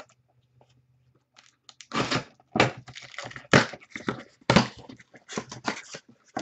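Cardboard trading-card boxes being handled and pulled from their cardboard case. About two seconds in starts a quick, irregular run of scraping, rustling and knocks of cardboard against cardboard.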